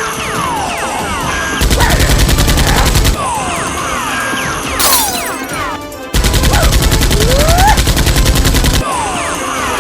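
Rapid-fire machine-gun sound effects in two long bursts, one about a second and a half in and a longer one just past the middle, over background music.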